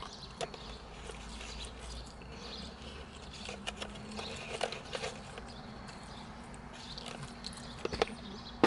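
Close-up chewing and mouth sounds of a person eating waffle fries, with scattered soft clicks and a sharper smack near the end, over a faint steady low hum.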